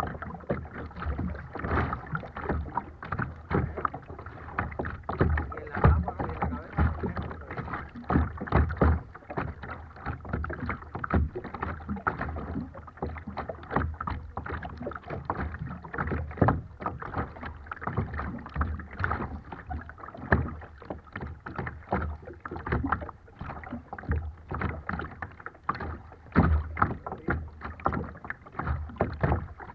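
Choppy water slapping and sloshing against a kayak close to the microphone, in quick, irregular splashes.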